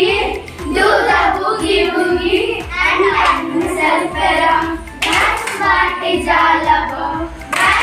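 A group of children singing an English action rhyme together, with a couple of hand claps, one about five seconds in and one near the end.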